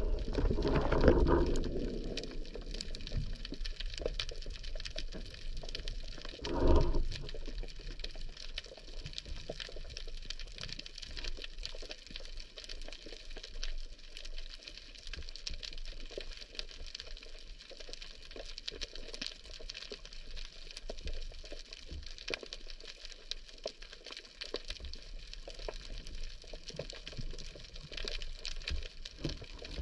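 Underwater ambience picked up by an action camera in its housing: a constant dense crackle of tiny clicks. Two louder, pitched sounds stand out, one lasting about two seconds at the start and a shorter one about seven seconds in.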